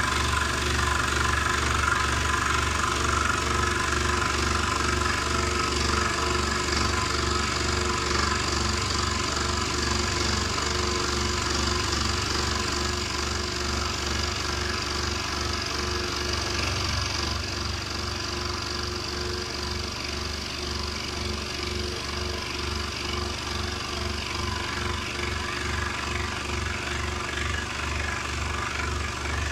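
Electric scroll saw running steadily, its omnidirectional spiral blade cutting a curved S-shaped line through a 20 mm block of fir. The motor's low, fast-pulsing hum runs under the rasp of the blade in the wood, which grows a little quieter about halfway through.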